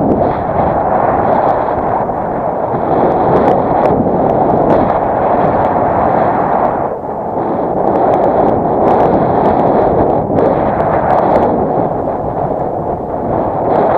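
Strong wind buffeting the camera microphone: a loud, rough rushing that drowns out the paraglider's variometer beeping, easing briefly about seven and ten seconds in.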